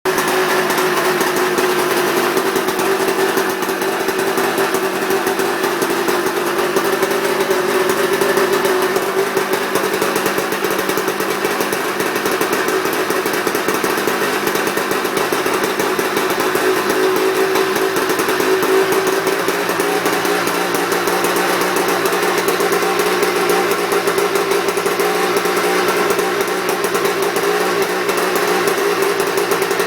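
SX200 engine running steadily at a constant speed, an even, high-pitched mechanical drone with no revving.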